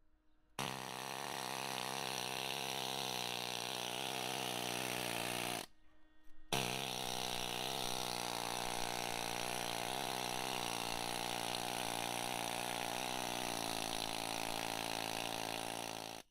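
Pneumatic needle gun hammering rust scale off the steel pilot house of a yacht, a steady rapid rattle with a buzzing pitch. It stops for about a second just before halfway, then runs on again.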